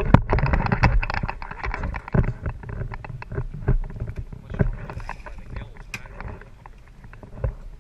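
Irregular knocks and clatter against the side of a small fishing boat as a long-handled landing net is worked over the gunwale, with water sloshing at the hull. The knocking is busiest at the start and thins out toward the end.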